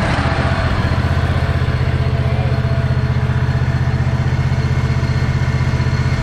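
Newly installed Briggs & Stratton V-twin replacement engine on a John Deere Z425 zero-turn mower, running at a steady idle with an even pulse. It cuts off at the very end.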